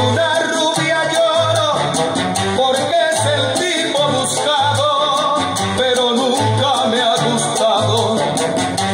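Salsa-style Latin dance music played loud through a Sony Genezi MHC-GNX80 mini hi-fi system's speakers, with a bass line pulsing about twice a second under the instruments.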